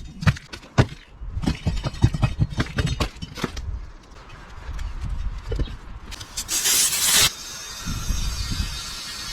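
Knocks and scuffs of a trailer tire being handled on its rim. About six and a half seconds in comes a short loud burst of air hiss, then a steady hiss of compressed air going into the tire as it starts to air up against the sealing bead.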